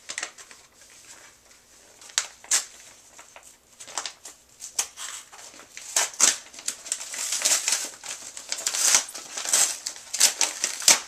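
Hands crinkling and tearing a package's white wrapping while unwrapping it. Scattered rustles at first, growing busier and louder about halfway through.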